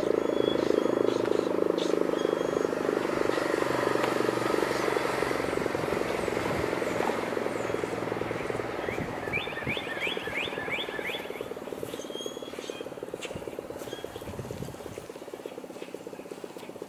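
ACA Banshee 115 eight-port, three-phase outdoor warning siren winding down at the end of its noon blast, its steady tone thinning and fading away. Birds chirp, with a short trill near the middle.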